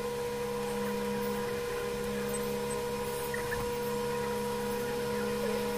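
Steady machine hum holding several fixed tones, even in level throughout, with a few faint small ticks.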